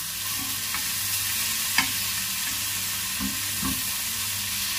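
Sausages wrapped in streaky bacon sizzling steadily in hot oil in a frying pan, with a sharp click a couple of seconds in and a few low knocks as they are turned in the pan.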